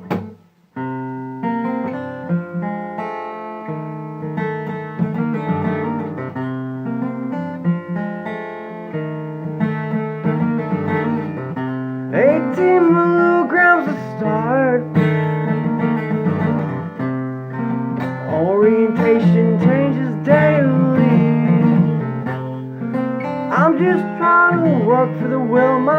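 Acoustic guitar playing the instrumental opening of a song, plucked chords over bass notes. From about twelve seconds in, a melody line with notes that bend in pitch comes in over the chords.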